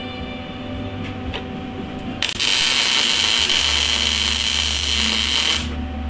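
MIG welder arc burning for about three and a half seconds: a steady, loud hiss that starts abruptly about two seconds in and cuts off sharply near the end.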